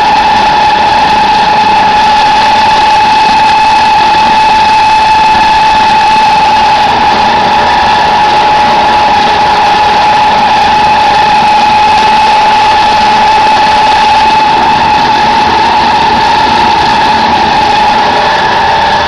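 Chicken feed pellet press machine running steadily, a loud even drone with a constant high-pitched whine over it.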